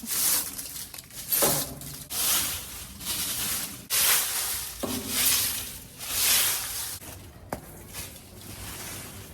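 Leaves being brushed off a porch floor, with repeated swishing strokes about one a second and a couple of light knocks in between.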